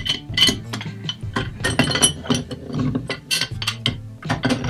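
Aluminum pipe wrenches clinking and clicking against a brass ball valve, with repeated sharp clicks throughout as the offset wrench is swung and reset to tighten a threaded adapter into the valve.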